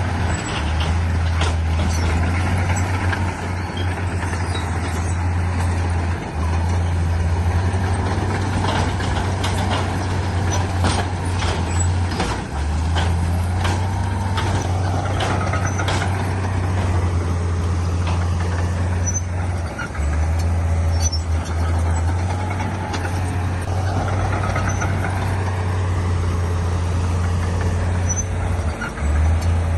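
Heavy diesel earthmoving machinery running with a steady low drone, with a run of clanks and knocks in the middle.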